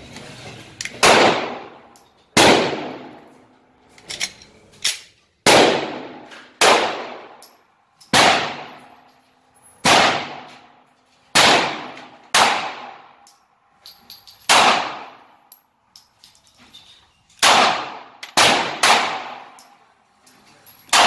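Semi-automatic pistol firing about a dozen single shots, roughly one every one to two seconds, each loud crack followed by a long echoing decay in the enclosed indoor range.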